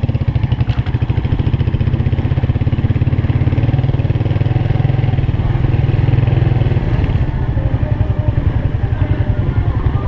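Motorcycle engine running steadily with a fast, even low pulse, a little louder about halfway through.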